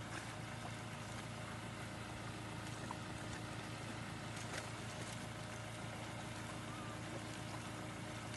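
A steady low motor hum over a wash of water noise, with a few faint splashes from dogs wading in a shallow stream.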